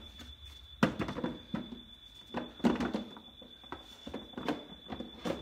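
Hard plastic knocks and clatter as tool batteries are handled and tried in a plastic tool case, five or so sharp knocks spread through, over a faint steady high whine.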